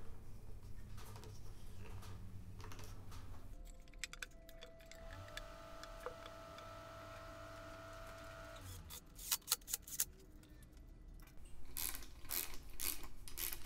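Small metal clicks and rattles of valve-cover bolts being started by hand on an aluminium LS valve cover, then a ratchet clicking in quick runs near the end as the bolts are run down. A faint steady tone sits under the middle few seconds.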